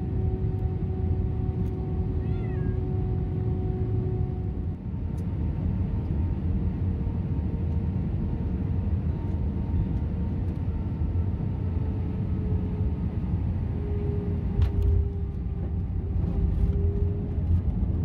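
Airliner cabin noise during descent and landing: a steady loud rumble of engines and airflow with a few steady tones, and a cat meowing from its carrier about two and a half seconds in. A sharp knock comes about fifteen seconds in, and the rumble is a little louder after it, as the plane rolls out on the runway with spoilers up.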